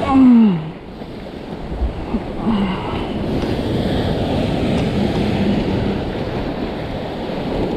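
Ocean surf breaking and washing against a rock ledge, with wind buffeting the microphone. Right at the start a man's short exclamation falls in pitch, and a brief vocal sound follows about two and a half seconds in.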